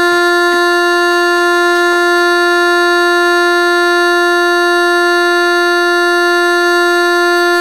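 A steady buzzy test tone from a speaker, of the kind used to shake sand into cymatic patterns, held at one mid pitch without change. A few faint ticks sound in the first two seconds.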